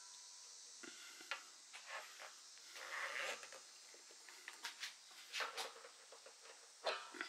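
Adjustable steel wrench clicking and scraping against a brass PEX adapter fitting as it is set on the hex and turned to tighten the fitting onto the water heater's threaded nipple. There are scattered light metal clicks, a short scrape about three seconds in, and a few sharper ticks near the end.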